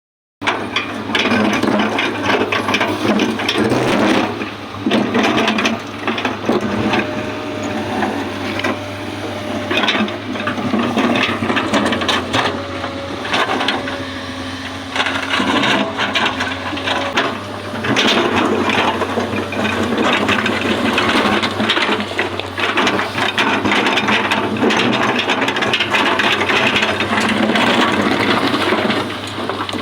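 Hydraulic excavator at work: a steady engine drone underneath, with dense irregular scraping, crunching and knocking from the bucket working the fill.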